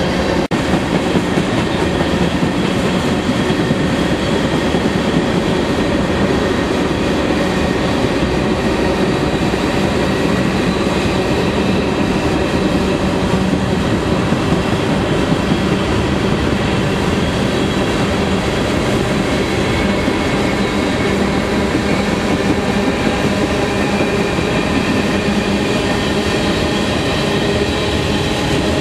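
A freight train of empty ethanol tank cars rolling past close by. The steel wheels on the rail make a steady, unbroken noise with a few held ringing tones.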